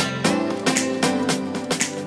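Background music led by plucked guitar, with notes struck several times a second.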